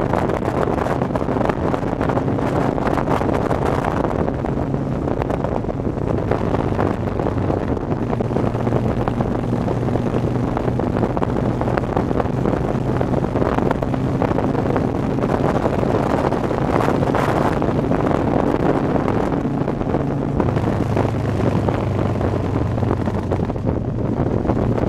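Motorcycle engine running steadily at road speed, under heavy wind buffeting on the microphone.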